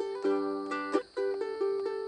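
Solo ukulele playing a melody: strummed chords about a quarter of a second and a second in, with single plucked melody notes ringing between them.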